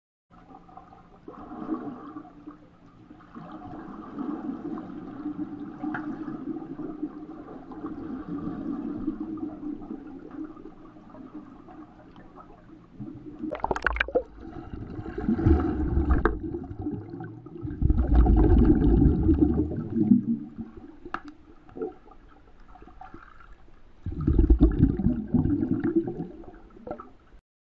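Swimming-pool water heard from underwater: muffled churning and bubbling as swimmers move near the camera, with four louder rushing surges in the second half.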